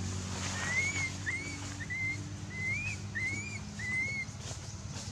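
A series of six short, high, whistle-like animal calls, each rising and then levelling off, about one every two-thirds of a second, over a steady low hum.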